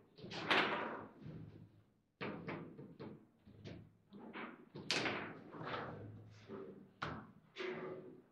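Foosball table in play: an irregular run of sharp knocks and clacks as the ball is struck by the plastic figures and the rods bang in the table, several a second at times, with a few louder hits.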